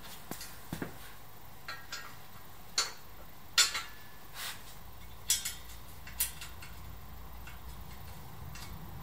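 Irregular sharp metallic clinks and taps of bolts and hardware being handled while the subframe is fitted to the motorcycle's frame, a dozen or so in all, the loudest a little over three and a half seconds in.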